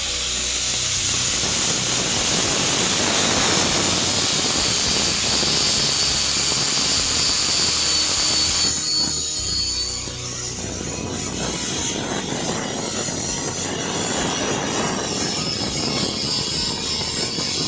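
Angle grinder with a blue hook-and-loop abrasive disc grinding rust off heavily rusted steel: a high motor whine over harsh grinding noise, which eases and changes about nine seconds in.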